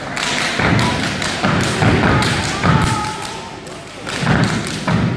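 A group of dancers stomping and stepping in rhythm on a hardwood gym floor: repeated heavy thuds coming in clusters.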